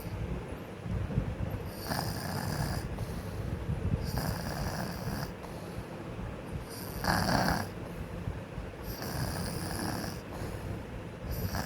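A sleeping child snoring, with a noisy snore on each breath about every two to three seconds.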